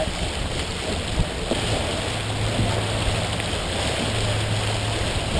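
Water rushing and splashing along the hull of a Columbia 30 sailboat under sail, with wind buffeting the microphone. A low steady hum joins about two seconds in.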